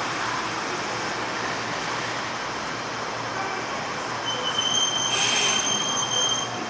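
Electric train approaching along the line, a steady rumble of running noise. About two-thirds in, a high, steady, thin squeal sets in, with a brief hiss at its loudest point.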